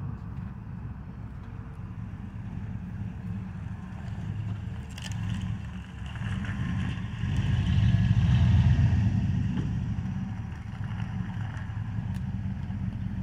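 GMC pickup truck's engine running with a low, steady exhaust rumble that swells louder for a few seconds in the middle as the truck moves closer.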